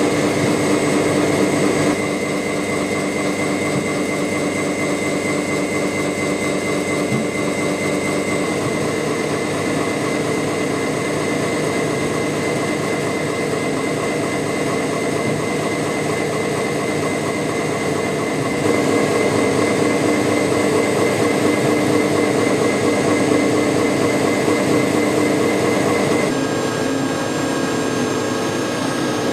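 Steady, loud industrial machinery running, a dense hum with several held tones. The sound shifts abruptly in pitch and loudness a few times.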